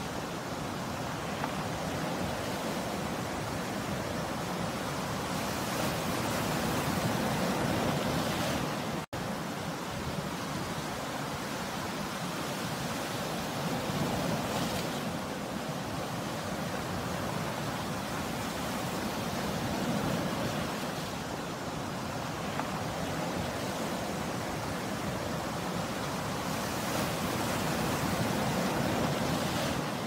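Sea surf breaking and washing up the shore: a steady rush of waves that swells and eases every several seconds, with a momentary dropout about nine seconds in.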